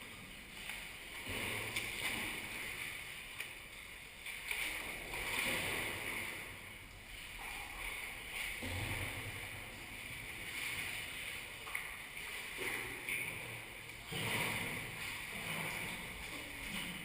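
Sea kayak being paddled on open water: paddle strokes splashing, with water washing along the hull in uneven swells every second or two.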